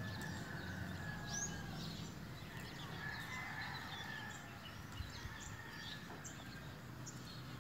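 Birds chirping and calling, with short high chirps and whistles scattered throughout, over a steady low outdoor rumble.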